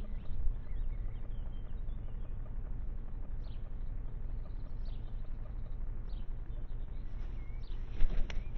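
Steady low background rumble with a few faint, short bird chirps. About eight seconds in, a sudden loud rustle and flutter as a crow moves off quickly with its wings beating.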